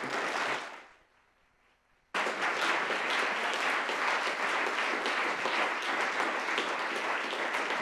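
Audience applauding: a short spatter that fades within the first second, then steady applause that starts abruptly about two seconds in and carries on.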